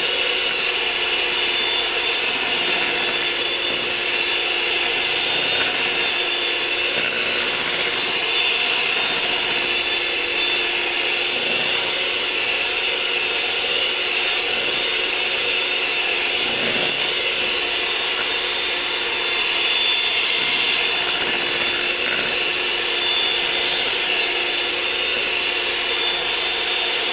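Electric hand mixer running continuously, its twin beaters whipping a liquid ice-cream base of cream and condensed milk in a plastic bowl: a steady motor whine that holds one pitch throughout.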